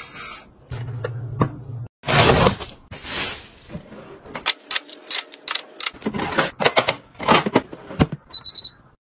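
Handling noise of kitchen appliances: a run of clicks, knocks and scrapes as plastic lids and a dish-drying cabinet's cover and door are worked, with a brief low hum about a second in.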